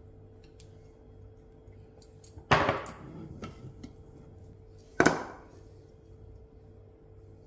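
Two sharp metal clanks about two and a half seconds apart, each ringing briefly, as a steel plate is knocked, with a few faint clicks between.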